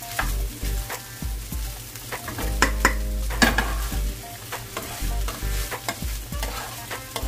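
Fried rice sizzling in a hot frying pan as it is stirred and scraped with a spatula, with sharp scrapes against the pan, the loudest about halfway through.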